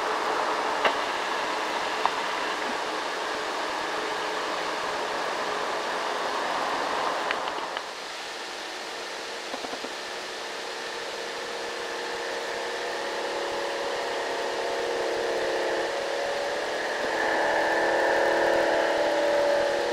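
Diesel engine of a loaded light truck pulling uphill, running steadily. About eight seconds in it drops away, and another truck's engine comes in, growing louder as it approaches over the last few seconds.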